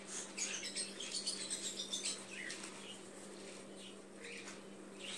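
Parrotlets making soft, short chirps and small falling calls among faint scratchy rustling and fluttering, over a steady low hum.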